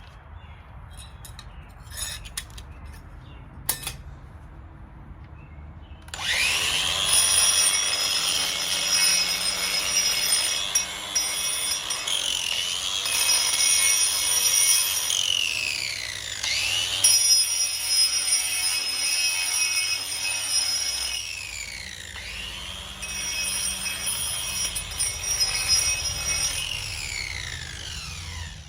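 A Ryobi ONE+ 18V cordless 4-1/2 in. angle grinder with a screw-on grinding wheel starts about six seconds in and grinds stone with a high whine and a gritty rasp. Twice its pitch sinks and climbs back up as it slows and speeds up again, and it winds down near the end. A couple of faint clicks come before it starts.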